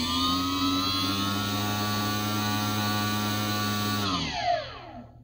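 A DIY centrifuge's 1500KV brushless outrunner motor, driven through a 30A speed controller, spins its rotor of Eppendorf tubes with a steady high whine over a low hum. About four seconds in it spins down, the whine falling in pitch and fading out near the end.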